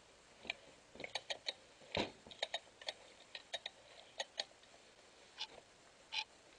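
Light, irregular clicks and taps of metal and plastic as a stripped-down Husqvarna 266 chainsaw, its cylinder removed, is handled and turned over, with one louder knock about two seconds in.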